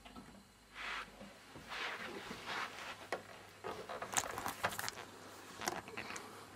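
A string of soft scrapes, rustles and pats with a few sharp clicks, from a toddler's hands moving over a polished wooden table top.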